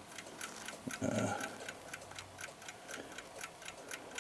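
A mechanical clock ticking: a quick, even, faint tick.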